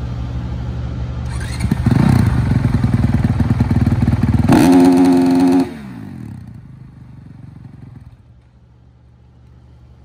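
A Honda factory supercross bike's four-stroke single-cylinder engine being revved on the sound-check stand. It idles, revs up about a second and a half in and holds there, then steps up to a higher held pitch near the middle. The revs drop away about six seconds in, and the engine quiets further after about eight seconds.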